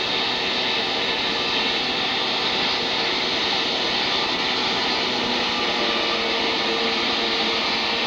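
Small engine of a six-wheeled amphibious ATV running steadily, a loud, even rushing noise.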